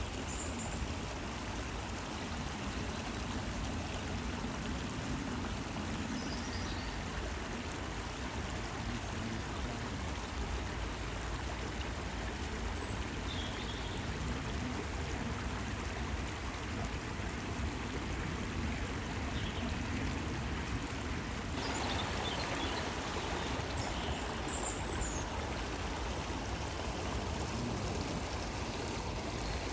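Flowing stream water running and gurgling steadily. About two-thirds of the way in, the water's sound shifts to a brighter, slightly louder rush, as if from a different stretch of water.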